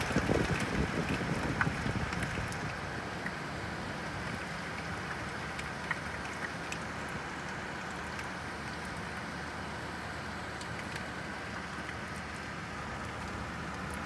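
Steady rain falling, an even hiss with scattered sharp ticks of nearby drops. A louder low rumble during the first two seconds settles into the rain.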